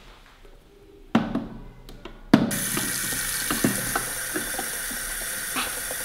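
Water running steadily from a tap into a glass bowl. It starts suddenly about two and a half seconds in, just after a knock, with small clicks over it.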